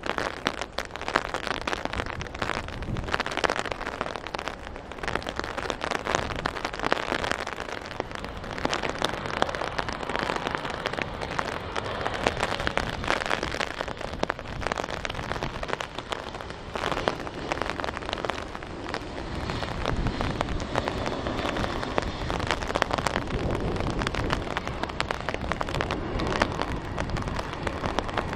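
Heavy rain falling, a dense crackle throughout. Under it, the Dassault Falcon 900's three turbofan engines grow louder in the second half as the jet comes in to touch down on the wet runway.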